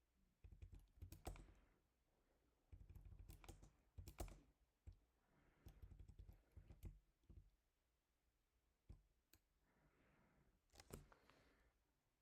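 Faint computer keyboard typing: several short bursts of keystrokes with pauses between them.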